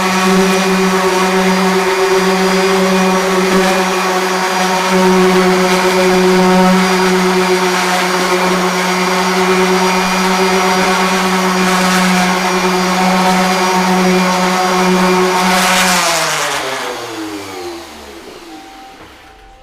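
Electric floor sander's motor running steadily with a constant hum, then switched off about sixteen seconds in and winding down, its pitch falling over a few seconds.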